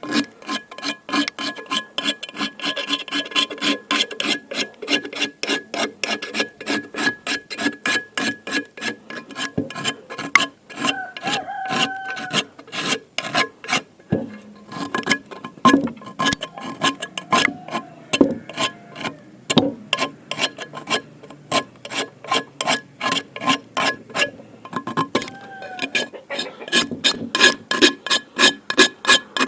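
Rapid back-and-forth scrubbing of a rusted cast iron skillet to take off the rust, about three to four strokes a second, with a few short squeaks.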